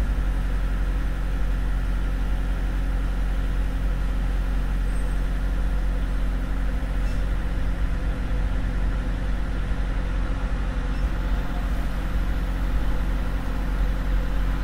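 Volvo semi-truck's diesel engine heard from inside the cab, running steadily at low revs with an even hum.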